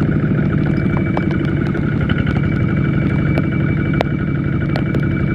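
Kubota ZT140 single-cylinder diesel engine of a two-wheel walking tractor running steadily under load as it pulls through deep mud, with scattered sharp clicks over it.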